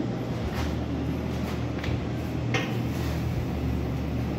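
A few light clicks and knocks as a frying pan is handled on a gas stovetop, over a steady low hum.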